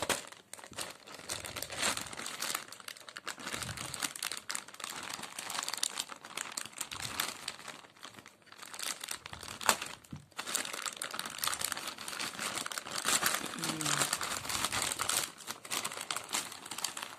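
Plastic courier mailer bag crinkling and rustling as it is cut open with scissors and pulled apart by hand, with many sharp clicks and the loudest click about halfway through.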